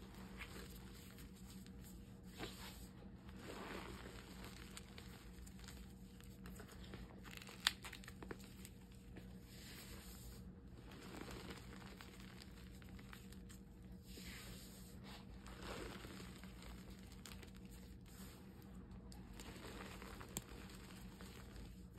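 Hands crushing and squeezing reformed gym chalk in loose chalk powder: soft powdery crumbling and crunching in swells, with an occasional sharp click, over a faint steady hum.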